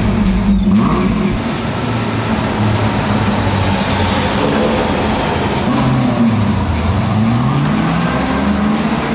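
Ford Mustang's engine running under throttle and revving, its pitch climbing and falling several times, most plainly around six to seven and a half seconds in.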